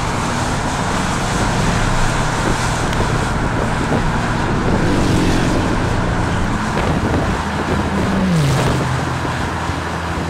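A car driving at speed: steady engine hum under road and wind noise. About eight and a half seconds in, a low engine tone drops sharply in pitch.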